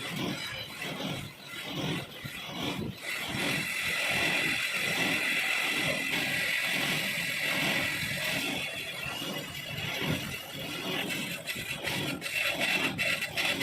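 Metal-cutting lathe working a cast iron nut: repeated rough scraping of the tool on the iron, with a steadier, higher scrape through the middle.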